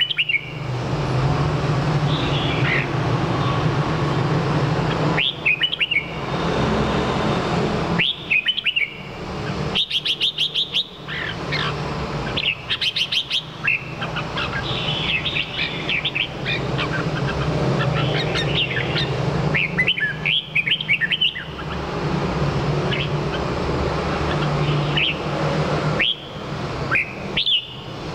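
Red-whiskered bulbul singing: short whistled phrases every few seconds, one with a quick run of repeated notes about ten seconds in, over a steady low hum.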